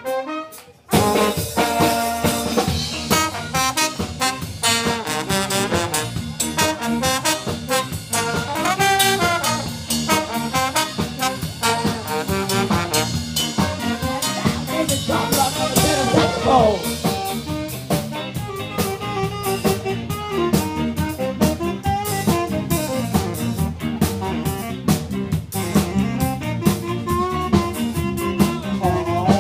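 Live ska band playing an instrumental section, with a saxophone solo over drums and a brass section. There is a brief break in the music right at the start.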